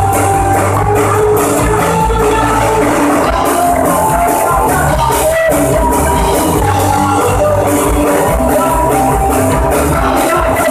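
Rock band playing live: electric guitars, bass guitar and a drum kit with cymbals, loud and steady.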